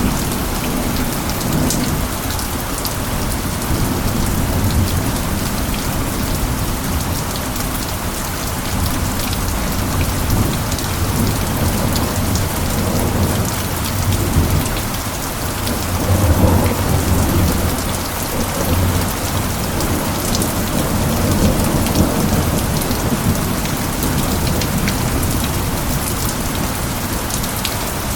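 Steady heavy rain hissing, with low rolling thunder rumbling underneath that swells a few times, most strongly a little past the middle.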